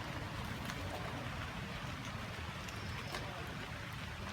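Steady outdoor background noise: a low rumble with hiss above it and a few faint clicks scattered through.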